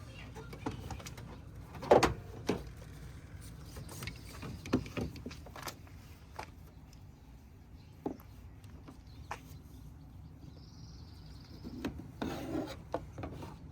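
Heavy-duty jumper cable clamps being handled and clipped onto battery terminals: scattered clacks and knocks with rubbing and scraping, the loudest clack about two seconds in and a cluster of knocks near the end.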